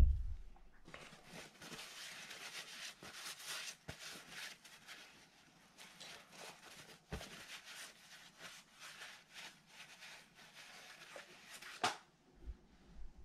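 A towel rubbing and rustling as a part or gloved hand is wiped, a steady scratchy sound with small crackles, set off by a thump at the start and a few light knocks, the sharpest near the end.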